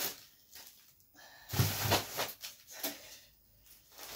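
Thin plastic bag liners crinkling and rustling as whole frozen fish are handled and laid into a cardboard box, in irregular bursts, the loudest about one and a half seconds in.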